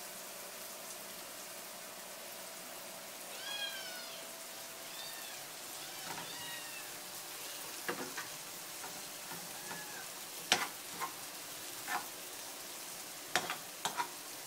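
Sliced onions frying in butter in a non-stick pan, a steady sizzle, while a metal spoon stirs them and knocks and scrapes against the pan several times in the second half, loudest twice near the end. Several short rising-and-falling calls sound in the first half.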